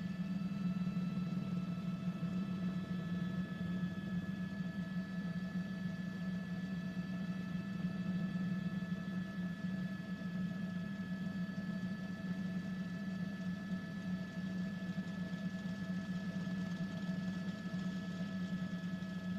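Steady drone of a news helicopter heard from inside the cabin: a low hum with several constant high whining tones over it.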